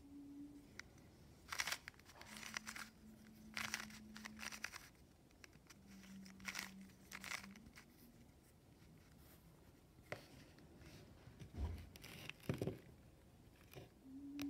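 Plastic puzzle cube being turned by hand: bursts of clicking and clacking as its layers are rotated, coming in short flurries. Two duller knocks near the end as the cube is handled and set down.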